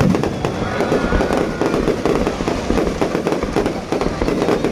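Fireworks display going off: a dense, continuous crackle of many small bangs.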